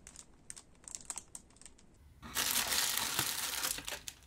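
Clear plastic bag around model-kit sprues crinkling as it is handled: a few faint scattered crackles at first, then a loud, continuous crinkling rustle from about halfway through until shortly before the end.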